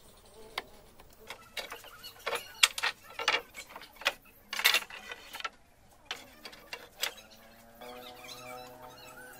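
Hardwood boat planks and a metal clamp being handled: a series of sharp knocks and clatters, heaviest in the middle. A steady droning tone comes in near the end.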